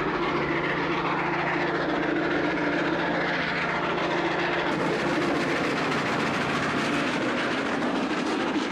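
Steam train running: a steady rush of noise with a low hum underneath and no distinct chuff beat.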